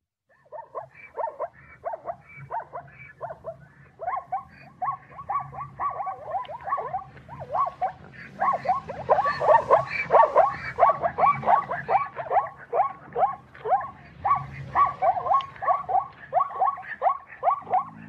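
Zebras calling: a long run of short, rapid barking yelps, several a second, louder about halfway through.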